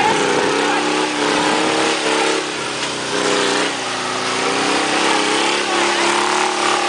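A motor vehicle's engine running steadily, its pitch drifting up and down as the revs change.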